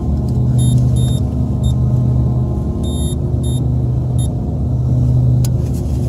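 Steady low machine hum from running HVAC equipment. Two brief clusters of short high-pitched beeps from a multimeter's continuity tester come about a second in and again around three seconds in.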